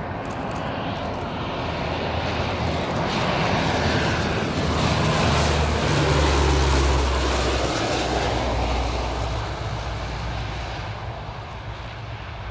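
Lockheed C-130H Hercules' four Allison T56 turboprop engines and propellers as it flies past low on landing approach, with a steady low propeller hum. The sound grows louder to a peak about six seconds in, then fades as the aircraft passes and heads for touchdown.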